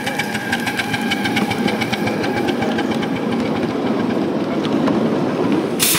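Live-steam riding-scale locomotive Waimanalo Sugar Co. #3 and its loaded riding cars rolling past on the track: fast, even clicking over a rumble that grows as the cars go by. A loud steam hiss starts right at the end.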